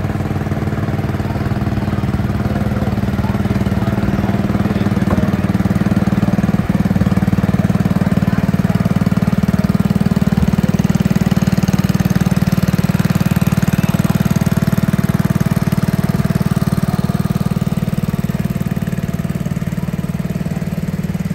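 An engine running steadily at close range with a fast, even beat, growing louder about a quarter of the way in and easing off again near the end.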